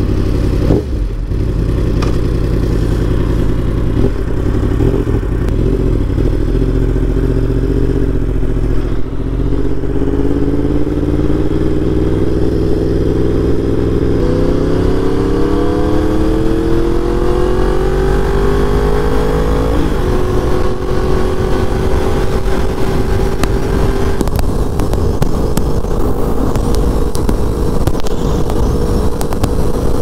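Yamaha YZF-R1M's crossplane inline-four, with an Akrapovic full exhaust system, heard from the rider's seat while accelerating. The pitch climbs steadily through the middle, drops at an upshift about two-thirds of the way in, then holds steady at a cruise.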